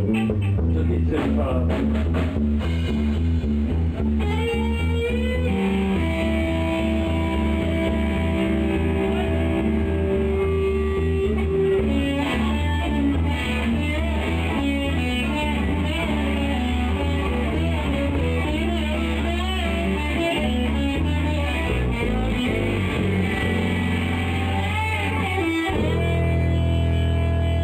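Live rock trio improvising: electric guitar playing long held, wavering lead notes over bass guitar and drum kit.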